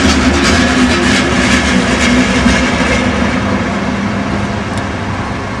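A train running past on the rails, its rumble slowly fading as it moves away.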